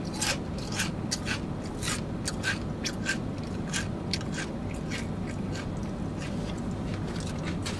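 A person chewing crunchy chips with the mouth close to the microphone: an irregular run of crisp crunches, a few each second.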